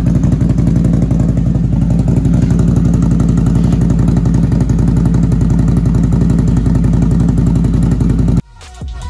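Can-Am Renegade ATV's Rotax V-twin running steadily through an HMF Performance aftermarket muffler, with a fast, even firing pulse. It cuts off near the end, where a trap beat begins.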